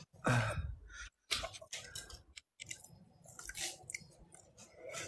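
Faint, scattered clicks and smacking mouth sounds of someone chewing close to a phone microphone, after a brief murmur at the start.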